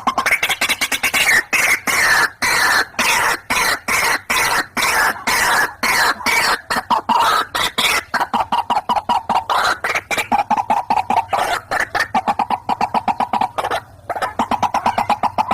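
White-breasted waterhens, male and female, calling in a loud, unbroken series of harsh repeated notes, several a second, quickening in the second half with a brief break about fourteen seconds in. This is a lure call recording used to attract the birds.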